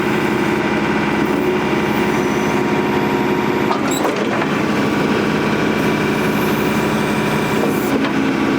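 Tractor engine running steadily under a John Deere 485A backhoe as it digs, with a single knock about four seconds in and the engine note changing until near the end.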